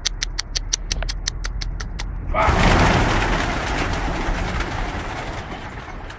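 Domestic pigeons: a run of quick, regular clicks, about six a second, then a sudden loud rush of noise about two seconds in that fades slowly over the next few seconds.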